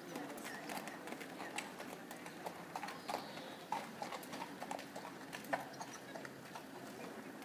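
Hoofbeats of a ridden horse moving over an indoor arena surface: a run of uneven knocks.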